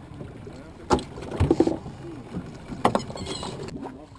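Small fishing boat at sea: water sloshing and slapping against the hull, with two sharp knocks, about a second in and just before three seconds.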